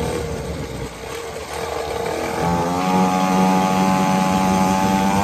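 Small 50cc two-stroke mini pit bike engine running. About two and a half seconds in it picks up to a louder, steady, higher note that slowly climbs in pitch.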